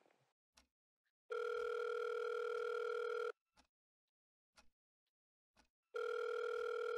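Telephone ringback tone heard in the earpiece, two long rings of about two seconds each, a couple of seconds apart: the transferred call ringing through on the other end. A wall clock ticks faintly about once a second underneath.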